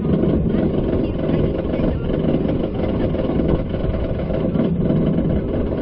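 Roller coaster train running along its steel track high on the ride, a steady loud rumbling with no clear screams or speech.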